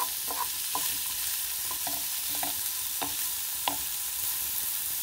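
Chopped celery, bell pepper and red onion sizzling in olive oil in a nonstick pan on low heat, with a steady hiss. A wooden spatula stirs them, making several short scrapes and taps against the pan.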